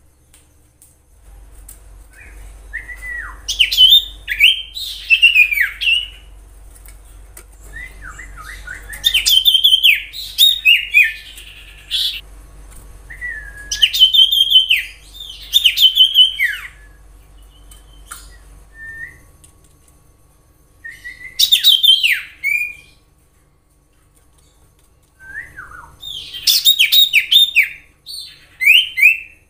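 Common iora singing: about six bursts of quick whistled and chattering notes that glide sharply up and down, with pauses of one to several seconds between them.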